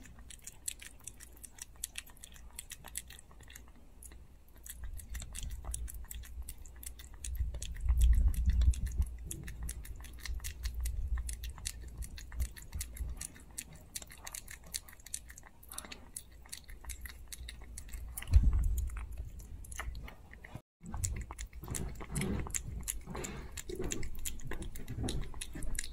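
A micro-size Chihuahua puppy eating soft pâté wet food from a plate, with quick wet licking, smacking and chewing clicks. A few dull low thumps sound along the way.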